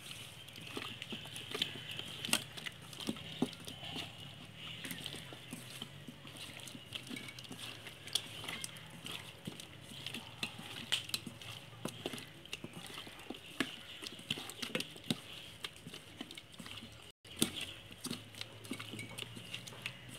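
Hands kneading and turning marinated chicken pieces in a stainless steel bowl: irregular wet squelches and small clicks against the metal. A steady high-pitched drone runs underneath.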